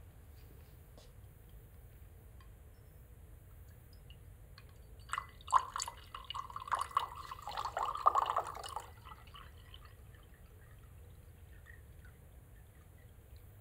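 Water poured from a glass beaker into an empty glass jar: a splash about five seconds in, then splashing and trickling into the glass for about four seconds before it stops.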